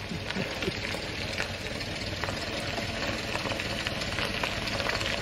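Ford Model T's 2.9-litre four-cylinder side-valve engine running at low speed as the car approaches, tyres crunching on gravel, slowly getting louder.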